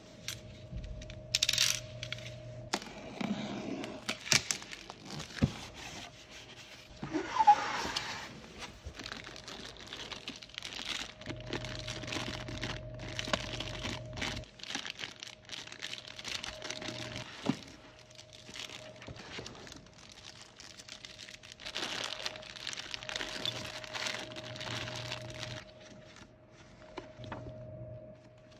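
Rustling and crinkling of packaging, with scattered clicks and small knocks, as computer hardware is handled. A faint steady hum runs underneath.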